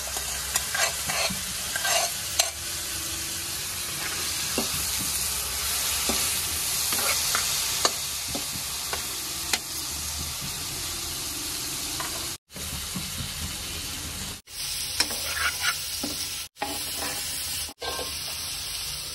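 Fish and onion masala frying with a sizzle in a nonstick kadhai, while a steel spatula stirs and scrapes against the pan. The sound cuts out abruptly several times in the second half.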